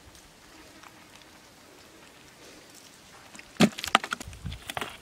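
Low, even outdoor background, then a quick run of sharp knocks and clicks starting a little past three and a half seconds in and lasting about a second and a half.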